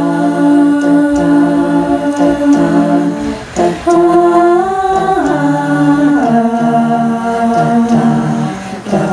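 A cappella vocal group singing wordless, hummed chords in close harmony, with the chord changing every second or two. There is a brief dip about three and a half seconds in.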